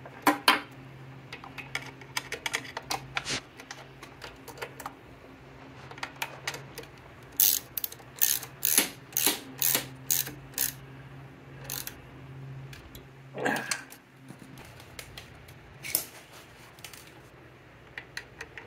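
Hands working on a scooter engine's cables and fittings around the carburettor: a string of sharp metallic clicks and clatters as parts are handled and fitted, densest about halfway through. A low steady hum sits under most of it and stops about two-thirds of the way in.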